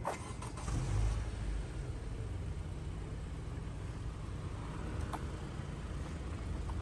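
A motor vehicle's engine running steadily with a low rumble, with a couple of light clicks near the start.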